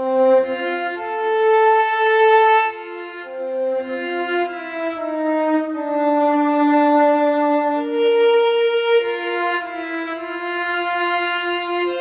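Instrumental background music: a slow melody of long held notes on a violin-like lead.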